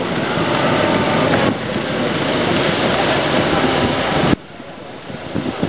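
Noise of a moving tram ride, a loud steady rumble and hiss with the voices of passengers mixed in. The noise drops suddenly about four seconds in, then builds up again.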